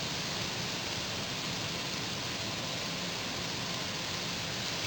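Water being poured into a hot pan of sautéed onions and garlic, a steady hiss.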